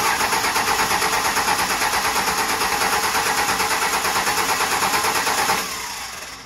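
Starter cranking a 24-valve Cummins 5.9 inline-six diesel that does not fire, its first start after a fire-ring head gasket job. It is a loud, even churn with rapid regular pulses; about five and a half seconds in the cranking stops and the sound winds down over about a second.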